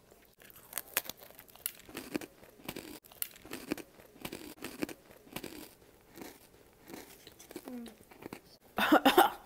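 Crunchy chewing of freeze-dried astronaut ice cream: irregular crisp crunches close to the mic, with a brief louder noise near the end.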